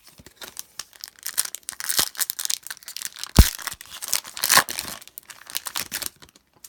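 Foil wrapper of a Panini Prizm football card pack crinkling and being torn open by hand, with one sharp knock about three and a half seconds in.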